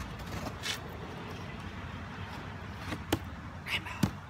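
Cardboard box being cut open with a knife: short scratchy rasps of the blade through packing tape and cardboard, one about a second in and one near the end, and two sharp knocks, over a steady low rumble.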